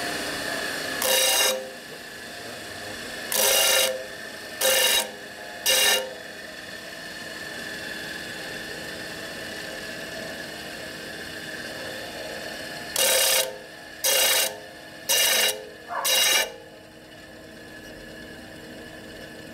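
Bench disc sander running steadily, with eight short bursts of grinding as the end of a chrome pushrod cover tube is pressed to the disc: four in the first six seconds and four more close together near the end. The end is being ground flat so the cover seats evenly on its cork seal.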